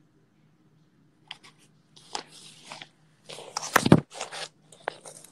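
Paper and packaging rustling and crinkling as they are handled close to a phone's microphone, in irregular bursts with a few sharp clicks. It starts about a second in, and the loudest is a heavier knock about four seconds in.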